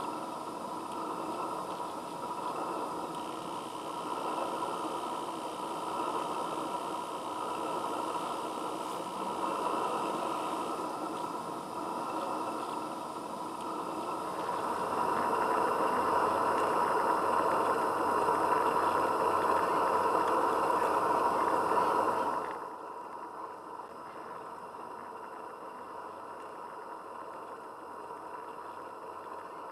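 A Roundhouse Engineering 'Karen' 16 mm live-steam locomotive standing in steam, hissing steadily. The hiss grows louder about halfway through, then drops away abruptly to a faint hiss about three-quarters of the way through.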